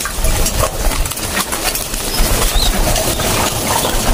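Racing pigeons flapping and scrambling for food, with many small clicks and scuffles as pellet feed is poured from a plastic bag and pecked off a feeding board.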